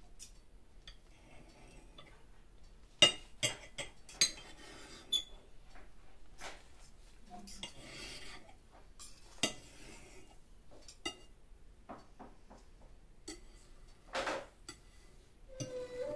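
Knife and fork clinking and scraping on a plate while cutting an omelette into pieces: scattered sharp clicks, the loudest about three seconds in, with short scrapes between.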